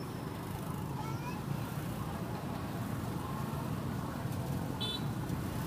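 Busy street ambience: a steady low traffic rumble, with faint distant voices and a brief high chirp about five seconds in.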